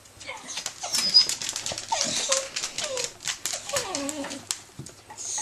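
Jack Russell terrier scratching rapidly with its claws under an armchair and whining in short cries that fall in pitch, trying to get at a tennis ball lodged beneath it. The scratching stops about a second before the end.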